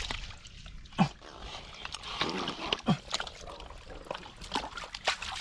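Water sloshing and splashing with scattered sharp knocks, as someone wades in a shallow pool handling a woven basket and a metal basin. Two short sounds that drop in pitch come about a second and three seconds in.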